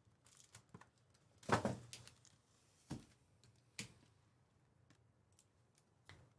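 Trading cards and foil pack wrappers being handled: a short rustle about a second and a half in, then a few sharp clicks spaced out.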